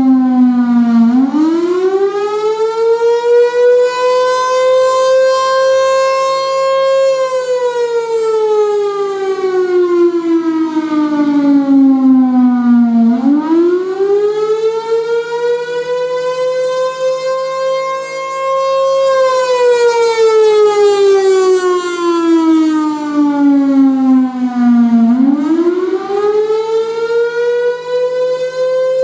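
Federal Signal Thunderbolt 1000 outdoor warning siren, a single-tone chopper fed by a Roots blower, sounding a slow wail on its monthly test. The pitch climbs for about three seconds, holds, then falls for about six seconds, repeating roughly every twelve seconds under a steady low hum. It is very loud.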